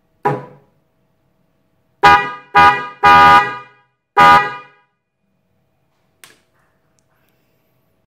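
Pair of Bosch H3F electric car horns, powered from a 12 V battery by touching the lead to its terminal, sounding in short honks: a brief blip just after the start, then four loud honks in quick succession about two seconds in, the third held longest. A faint click follows a little after 6 seconds.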